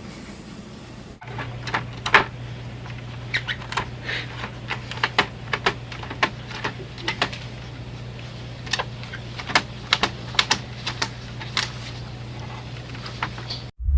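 Irregular light clicks and taps on a printer, spaced unevenly and sometimes coming in quick clusters, over a steady low hum. The sound cuts off abruptly near the end.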